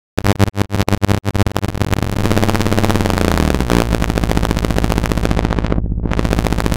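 Synthesized electrical sparks from the AudioElec synthesizer: dense, irregular crackling and snapping over a steady low electrical hum, starting suddenly after a brief silence.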